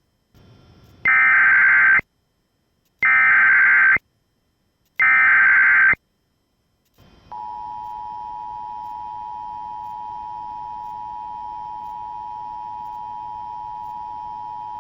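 Emergency Alert System tones: three one-second bursts of SAME digital header data, a buzzing warble, about a second apart, encoding the alert. About seven seconds in comes the steady EAS two-tone attention signal, two close pitches sounded together, which announces the spoken Silver Alert message.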